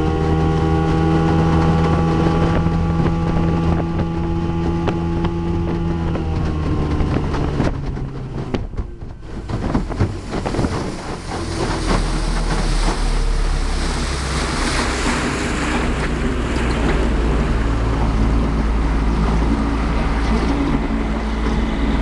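A 1974 Mercury 402 40 hp two-cylinder two-stroke outboard runs steadily with the boat underway, its pitch sagging slightly about six seconds in. About eight seconds in, the engine note falls away for a moment. Then rushing wind on the microphone and water noise take over, with the engine faint beneath.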